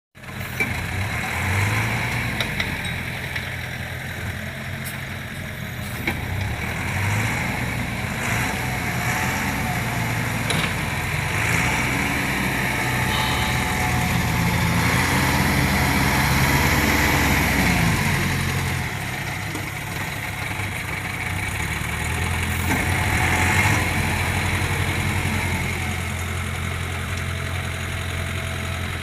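Diesel engine of a Volvo 55W wheeled excavator working, its note rising and falling several times as it loads under hydraulic demand, loudest in the middle of the stretch.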